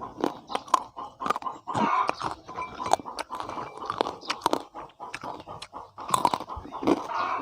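A person eating close to the microphone: crunching and chewing, with many irregular sharp crunches.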